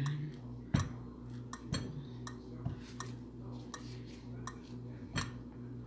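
Kitchen things being handled on a countertop: a few sharp light knocks and clicks, irregularly spaced about a second apart, over a steady low hum.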